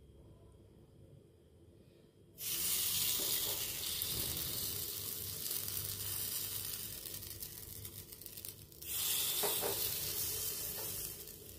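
Spoonfuls of semolina and ragi batter sizzling as they hit a hot, lightly oiled appe pan: a hiss starts suddenly about two seconds in, and a second one starts near nine seconds in, fading toward the end.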